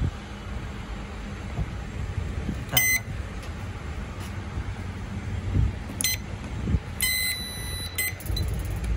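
Electronic beeps from a gas baking oven's control panel. There is a short beep about three seconds in, another about six seconds in, and a longer beep lasting about a second near the end, all over a low background rumble.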